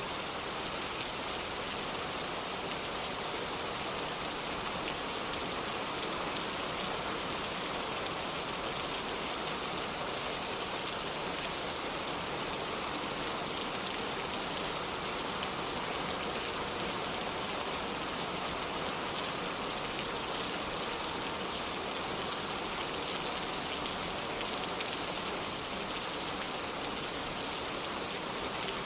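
Heavy rain falling steadily, an even hiss with no let-up, layered with the crackle of a wood fire burning in a fireplace.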